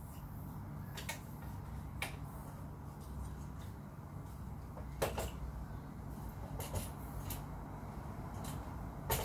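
Scattered short clicks and knocks of metal-legged budget camera tripods being handled, their centre columns and legs moved and the feet set on a wooden floor, the loudest knock about five seconds in. A low steady hum runs underneath.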